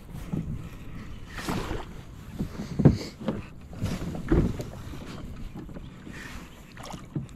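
Handling noise while a big bass is fought from a small plastic boat: irregular knocks and thumps against the hull, the loudest about three and four and a half seconds in, with a jacket rubbing over the microphone and some wind.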